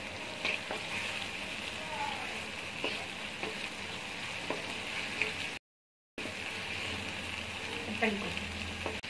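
Onions, tomatoes and ginger-garlic paste sizzling in oil in a non-stick frying pan, being sautéed until the raw smell of the ginger-garlic is gone. A wooden spatula stirring the mix gives small scrapes and taps against the pan. The sound drops out completely for about half a second just past the middle.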